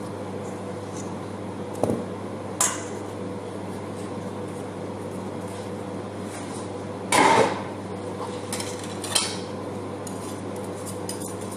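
Kitchen utensils clicking and clinking against a stainless steel mixing bowl as seasonings go in, with one louder, brief noise about seven seconds in. Near the end a wire whisk starts rattling quickly in the bowl. A steady low hum runs underneath.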